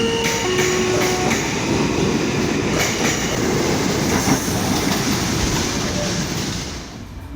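New York subway train running along the track: a steady rumble with wheels clicking over rail joints and brief wheel squeal in the first second or so, fading away near the end.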